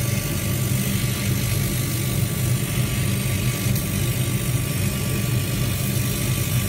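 Laser cutting machine running while it cuts acrylic plates: a steady low hum over an even hiss.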